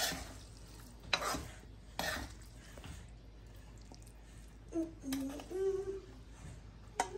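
Metal ladle scraping and knocking against a kadai as cooked okra masala is stirred and scooped out, with a few sharp scrapes in the first two seconds. A faint voice is heard in the background about five seconds in.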